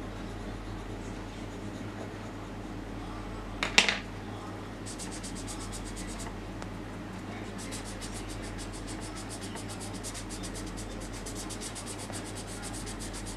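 Rapid back-and-forth shading strokes of a pencil on paper: a fast, even scratching that starts about five seconds in, pauses briefly, then runs on near the end. One sharp knock about four seconds in, over a steady low hum.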